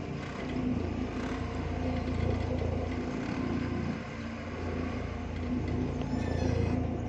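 Forklift engine running, its revs swelling twice as it manoeuvres and lifts at the truck bed.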